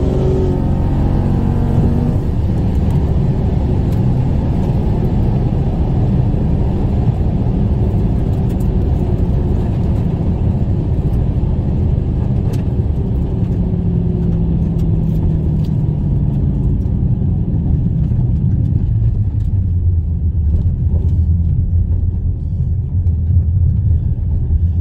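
A drag-racing street car's engine, heard from inside the cabin, coming off the throttle at the end of a quarter-mile pass and rumbling at low revs as the car slows down the shutdown area, with road and wind noise. Near the end it settles into a steady low drone as the car rolls along at low speed.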